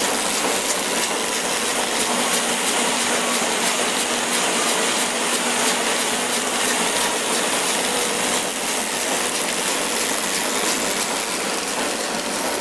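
Horizontal flow-wrap packing machine for filled stick snacks running: a steady mechanical hiss with faint, regular ticking.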